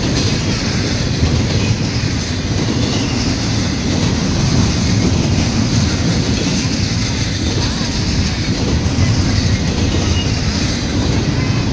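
Freight train cars rolling steadily past a grade crossing, a loud, even running noise of wheels on rail.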